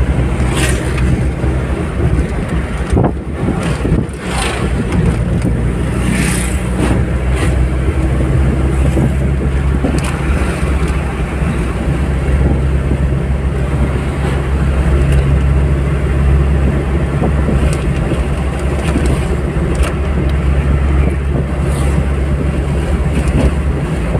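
Steady low drone of a moving car's engine and tyres on the road, heard from inside the cabin. A few short clicks or knocks cut through it in the first several seconds.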